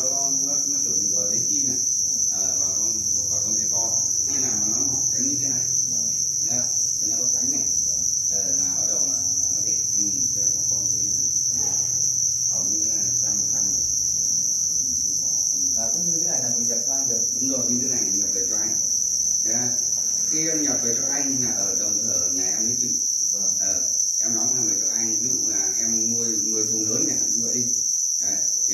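A dense, steady chorus of many farmed black crickets chirping at once: a continuous high-pitched trill without a break.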